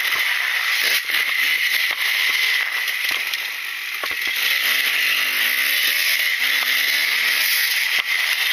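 Husqvarna WR300 two-stroke single-cylinder dirt bike engine being ridden hard, its pitch rising and falling as the throttle is worked through corners, easing off briefly about three and a half seconds in.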